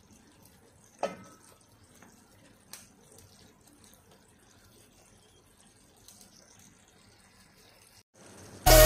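Mostly quiet, with one sharp knock about a second in and a couple of fainter clicks later, from a wooden spoon touching a granite-coated pan of braised chicken. Loud electronic music starts just before the end.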